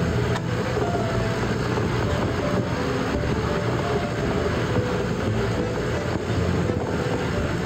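Steady low mechanical rumble with a faint hum in it, like a running engine.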